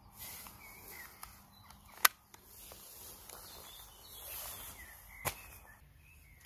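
A sharp click about two seconds in as the Umarex T4E HDS 68's break-open barrels are closed after loading, then a fainter click a few seconds later. Birds chirp and insects buzz in the background.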